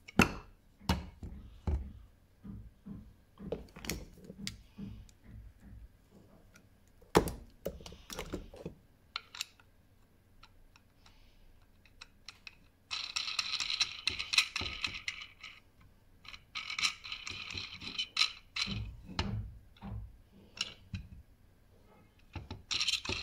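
Metal parts and a thread-cutting die being handled while an M6 screw rod's damaged threads are chased: a run of knocks and clicks, then two spells of metal-on-metal rasping about halfway through, and more knocks near the end.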